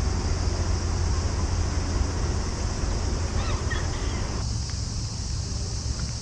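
Outdoor ambience dominated by wind rumbling on the microphone, over a steady high hiss. A faint brief chirp comes about three and a half seconds in, and the background thins about four and a half seconds in.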